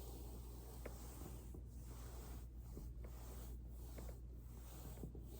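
Foam roller rolling under a body: a soft, low scratchy rustle of foam and clothing, with a few faint clicks.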